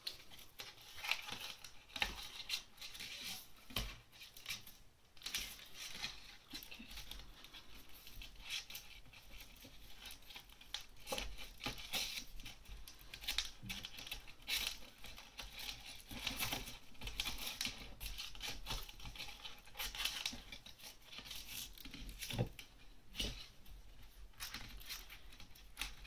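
Plastic gift-wrap ribbon crinkling and rustling in the hands as it is threaded through a paper tag and tied, with the card tag handled in between. The small rustles and ticks come irregularly.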